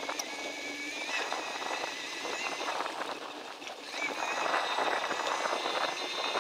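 Bicycle rolling along a woodland dirt trail, with irregular rattling and clicking as it goes over bumps. The rattle grows louder about four seconds in, over a steady high whine.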